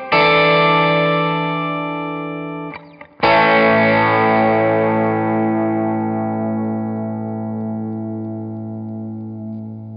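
Electric guitar, a PRS SE Silver Sky, through a Walrus Audio Fundamental Reverb pedal: a strummed chord rings for about three seconds, then a second chord is strummed and left to ring out, its reverb tail fading slowly.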